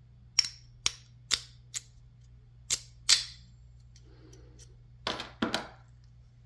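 Lock pick rake being worked in a dimple lock's keyway with a tension bar, giving a series of sharp metallic clicks about two a second. About five seconds in comes a longer rasping scrape of metal on metal.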